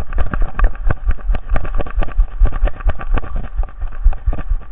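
Camera strapped to a running dog, jolted with each stride: rapid, irregular knocks and thumps over a low rumble.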